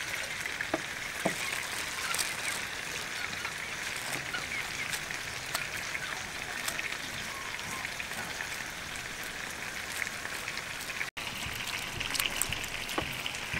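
Enoki mushrooms being washed by hand in a bowl of water: a steady wet rubbing and squelching as the clump is pulled apart and squeezed, with small splashes.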